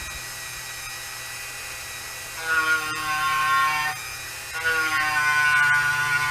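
A small high-speed power grinding tool cutting grooves into an aspen walking stick. The motor runs steadily, and twice the bit bites into the wood and a louder grinding whine rises over it: once about two and a half seconds in for over a second, and again from about four and a half seconds to the end.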